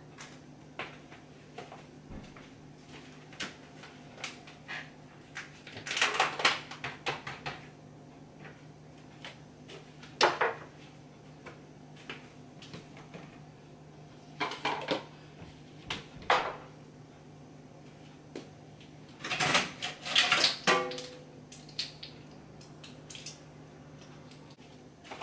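Kitchen clatter of dishes and utensils clinking and being set down on a counter, in scattered short bursts with quiet gaps, over a faint steady hum.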